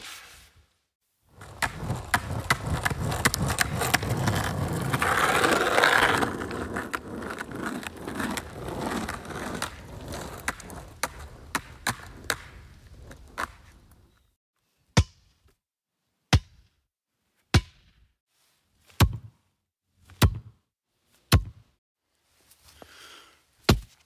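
Skateboard wheels rolling and turning on pavement: a rough rumble with many small clicks that swells and then fades out over about twelve seconds. After that come about seven separate sharp thuds, a little over a second apart.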